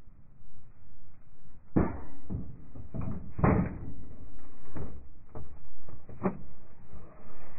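Sharp metallic clanks and knocks from the crew working the breech of an M119A3 105 mm howitzer, about half a dozen of them starting about two seconds in, the loudest near the middle, over a low rumble.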